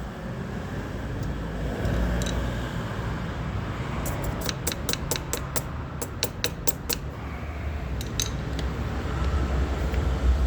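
A quick run of about a dozen sharp metallic clicks, a few a second, from tools working on the rear brake caliper as the pad retaining pin is fitted, with a few single clicks before and after, over a steady low rumble.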